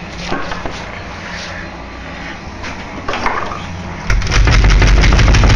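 Scattered noisy clatter, then about four seconds in a sudden, much louder, deep and crackling blast that keeps going.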